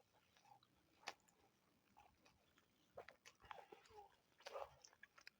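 A person chewing and biting food, with scattered wet mouth clicks and soft crunches and quiet between them. The sharpest click comes about a second in, and another cluster comes around four and a half seconds.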